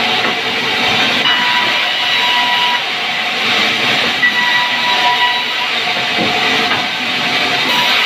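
Sawmill band saw cutting lengthwise through a timber log: a loud, steady rasping hiss with faint high tones coming and going.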